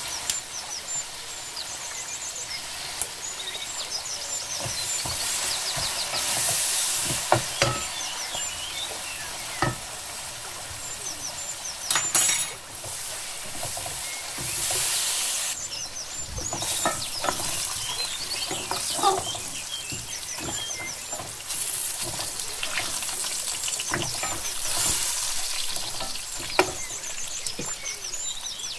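Sliced onions and whole spices sizzling in hot oil in an aluminium pot as they fry to brown, stirred with a wooden spoon that knocks against the pot now and then.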